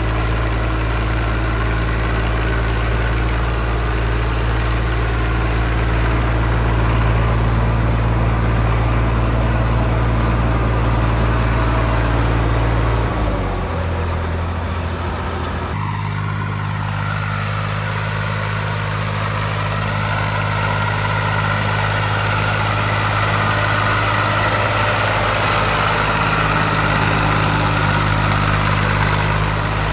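IMT 542 tractor's diesel engine running steadily under a plough. About halfway through its note drops for a couple of seconds, then settles at a new steady speed.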